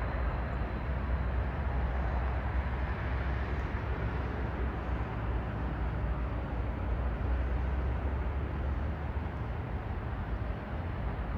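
Distant jet airliner on the runway: a steady rushing engine noise over a low rumble, with no distinct events.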